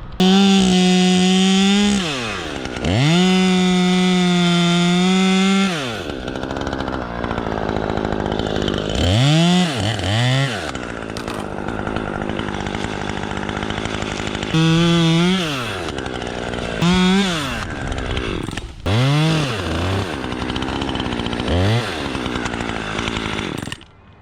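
Two-stroke chainsaw revved to full throttle and held there in two long pulls of about two and three seconds. It then drops back to idle between several shorter throttle blips that rise and fall in pitch, and cuts off suddenly near the end.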